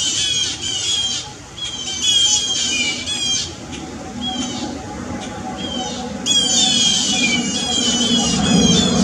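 Small songbirds scolding a perched hawk in mobbing alarm calls: bursts of rapid, harsh chattering notes, each burst about a second long, repeated every second or two. A low rumble builds near the end.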